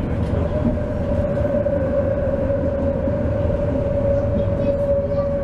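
Tram running, heard from inside the car: a steady low rumble with one steady high tone held throughout.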